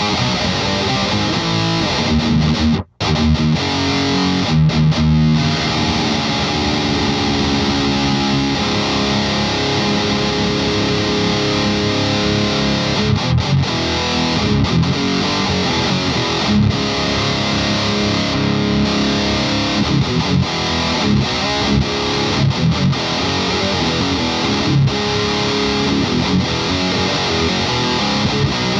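Electric guitar played through an overdrive pedal into an amp, with distorted riffs and held chords. The playing stops dead for a moment about three seconds in, then carries on.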